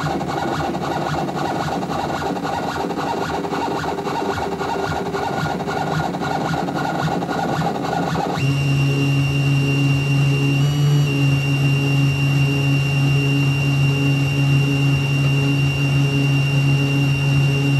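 A machine tool's motor drive running steadily as it moves the work to the next hole position. About eight seconds in, the sound changes to a different steady hum with a strong low tone and a thin high whine.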